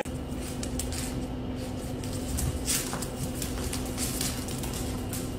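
A small puppy's claws tapping and skittering on a hard wood-look floor as it walks and then dashes, over a steady mechanical hum.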